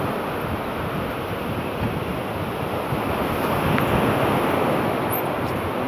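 Steady rushing noise of wind buffeting the phone's microphone outdoors, with no engine running and no voices.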